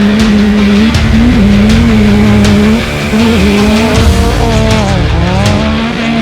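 Off-road race car engine running hard at high, steady revs; its pitch drops briefly about five seconds in and climbs back again.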